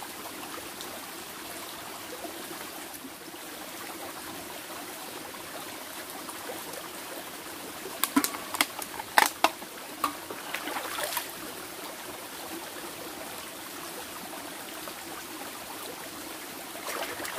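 Shallow mountain stream running steadily over rocks. About eight seconds in, a cluster of sharp clicks and taps for roughly three seconds as a drink can is handled.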